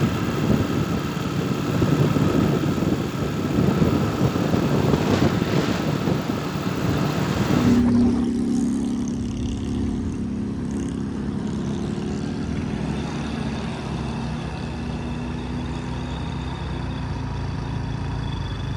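Motor scooter riding along with its small engine running and wind rushing over the microphone. About eight seconds in, the sound changes abruptly to a steadier, lower engine drone with less wind.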